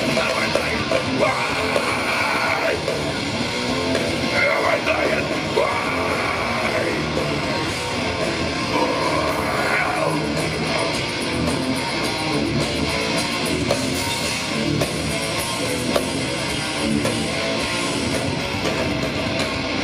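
Live heavy metal band playing loud, with electric guitars and singing.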